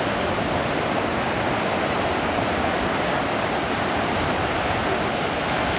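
Steady hiss and wash of sea surf breaking on a sandy beach, even in level throughout.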